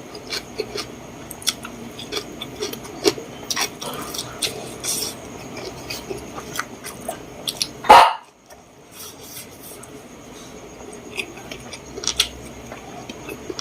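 Close-miked eating sounds: chewing with irregular wet clicks and crackles, and one loud bump about eight seconds in.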